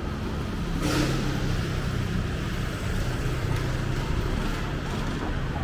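Street traffic: motor vehicles running close by, with a steady low engine rumble and a short burst of hiss about a second in.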